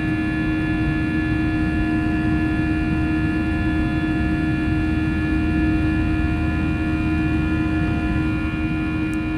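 Airbus A320 cabin noise in flight: a steady rumble of the jet engines and airflow, with a constant hum of several steady tones, easing slightly near the end.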